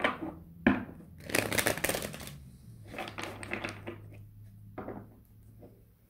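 A tarot deck being shuffled by hand: a sharp tap of cards, then about a second of dense rattling card rustle, followed by shorter rustles and taps as the cards are squared.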